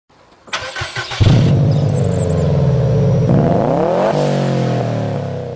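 Tuned, turbocharged Daihatsu Cuore engine cranked by the starter and catching about a second in, then idling, revved up once briefly and dropping back to idle.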